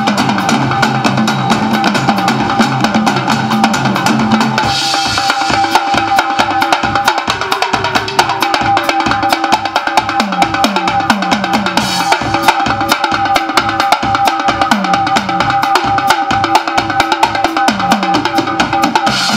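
Background music from a band with a drum kit, playing a steady, driving beat.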